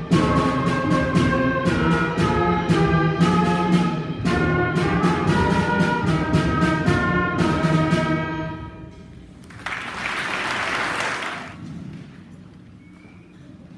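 Middle school concert band playing a brass-led piece with percussion strikes on the beat, about two a second; the piece ends on a held chord that dies away about eight seconds in. A short burst of noise about two seconds long follows near ten seconds in.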